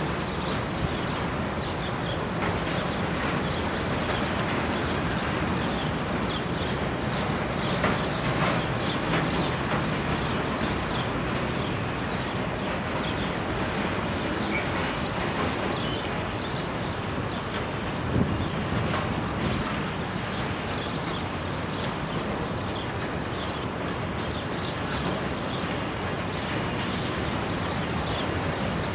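Container freight wagons rolling past on the rails: a steady rumble of wheels on track, dotted with small clicks and clatter, and a couple of louder knocks, one about eight seconds in and one about eighteen seconds in.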